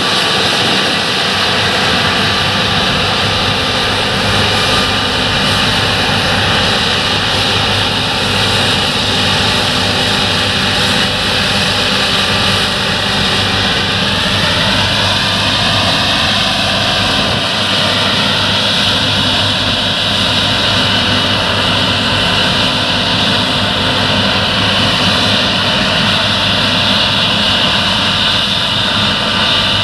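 John Deere S690i tracked combine harvesting wheat at close range: a steady, loud drone of engine and threshing machinery with a high whine. The pitch rises slightly about halfway through.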